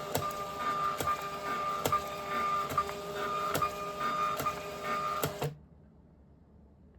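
A printer running: a steady whir with a sharp click a little under once a second, stopping suddenly about five and a half seconds in.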